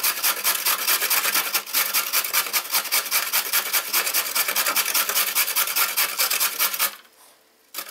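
A carrot being grated on a metal box grater: a quick, steady run of rasping strokes that stops abruptly about seven seconds in.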